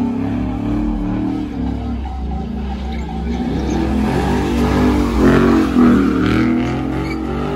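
Car engine revving, its pitch rising and falling, over a steady low engine rumble.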